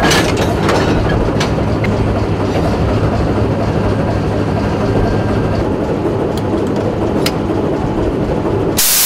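Soviet-built TEM2 diesel-electric shunting locomotive idling with a steady low engine hum, with several sharp metallic clanks from the coupling work between the locomotive and the first car. Near the end a loud, even hiss starts abruptly.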